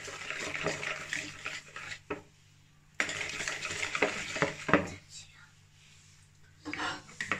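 Wire whisk beating a thin flour-and-starch batter in a bowl, a brisk wet scraping swish. It pauses about two seconds in, starts again with a couple of sharp clicks of the whisk against the bowl, and stops at about five seconds.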